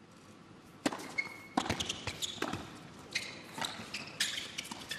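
Tennis rally on an indoor hard court: sharp pops of the ball off the rackets and the court, starting with the serve about a second in, with a few short shoe squeaks between the hits.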